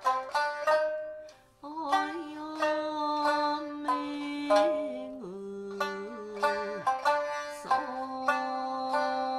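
Shamisen plucked in a kouta accompaniment, with a woman's voice holding long, slowly bending sung notes above it. The music breaks off briefly about one and a half seconds in.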